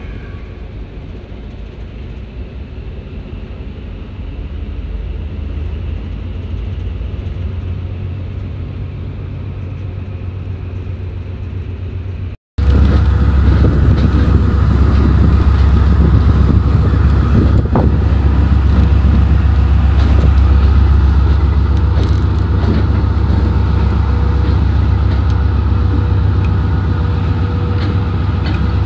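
Diesel locomotive running: first a steady low rumble while moving along the track, then, after a brief break about twelve seconds in, a much louder steady low engine drone from right beside the locomotive's body.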